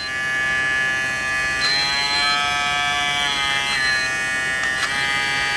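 Kemei KM-2242 cordless hair clipper running with a steady buzz that briefly steps up in pitch midway. The buzz carries noise from a loose, rattling part on the clipper body, which the owner says stops when he holds it down with a finger.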